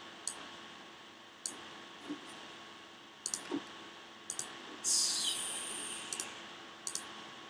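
Computer mouse clicking: a handful of sharp single and double clicks spread over several seconds. A short hiss about five seconds in falls in pitch.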